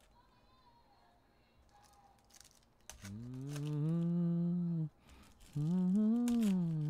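Faint rustle of foil card packs being handled, then a man humming two long notes, the first held for about two seconds and the second rising and falling.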